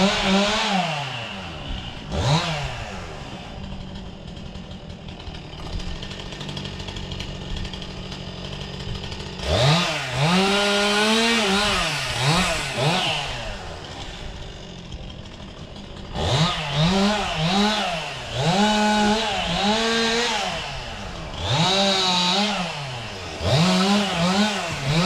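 Chainsaw engine idling and revving up again and again, its pitch rising and falling. There are two short blips at the start, a lower steady stretch, then longer high-revving runs about ten seconds in and from about sixteen seconds on.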